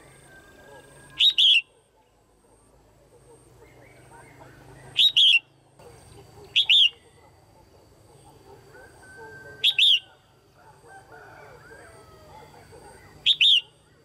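Female red-whiskered bulbul calling: five loud, short double notes a few seconds apart, the kind of call used to stir up male bulbuls or to pair them.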